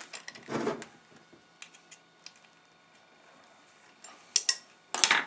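Clicks and light knocks of multimeter test leads and a probe being handled and set against a permanent-magnet alternator's housing and terminals. A short rustle near the start, a few faint ticks, then sharper clicks and a louder clatter about four to five seconds in.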